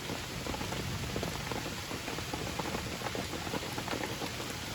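Steady rain falling, many small drops ticking on nearby surfaces.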